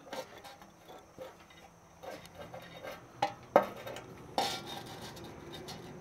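A plastic fitting being screwed into a pet water fountain's stainless steel tray by hand: scattered light ticks of plastic handling, with a few sharper clinks against the metal between about three and four and a half seconds in.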